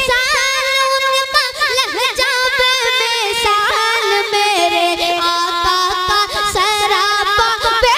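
A boy's voice singing a naat into a microphone, drawing out long notes without words, with wavering ornaments and vibrato.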